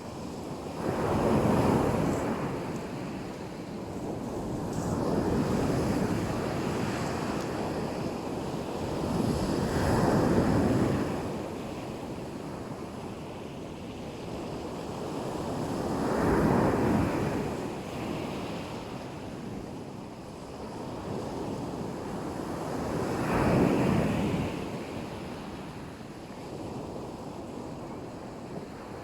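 Black Sea waves breaking on the shore, a wash of surf swelling and fading every six or seven seconds, with wind on the microphone.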